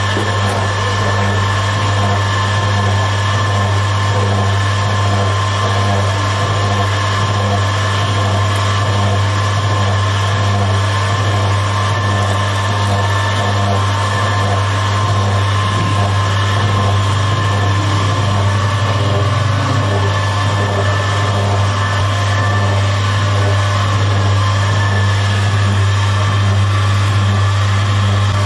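Electric dough mixer running steadily, its motor giving an even deep hum with a thin higher whine above it, as the paddle kneads flour and water into bread dough.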